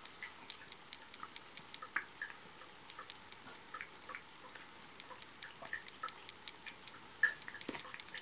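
Irregular small wet ticks and drips, several a second, as a thin trickle of tap water splashes on a cat and into a sink while the cat licks and laps water from its paw; the loudest tick comes a little after seven seconds in.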